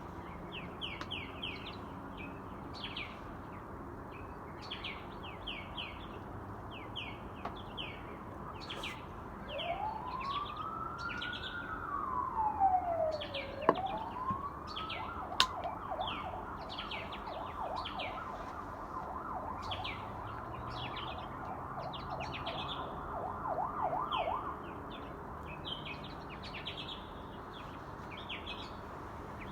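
Small birds chirping throughout while an emergency vehicle siren sounds: about ten seconds in it wails up and down once, then switches to a fast warbling yelp that stops about twenty-five seconds in. Two sharp clicks come a couple of seconds apart in the middle.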